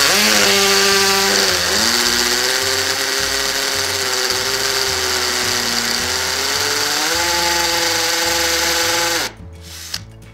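HiKOKI DV12DD 10.8 V cordless drill driver running in hammer (vibration) mode, drilling through a ceramic tile with a 4.5 mm masonry bit. Its motor whine over a fast rattle shifts in pitch as the trigger is eased and squeezed, and it stops suddenly about nine seconds in as the hole breaks through.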